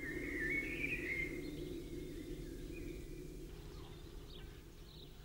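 Faint woodland ambience: a bird gives a wavering whistled call lasting about three seconds, then a few faint chirps follow, all over a steady low hum.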